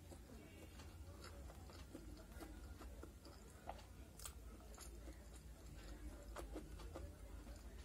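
Faint chewing and mouth clicks while eating soft pasta, with light clinks of a steel spoon scooping on a steel plate, over a low steady hum.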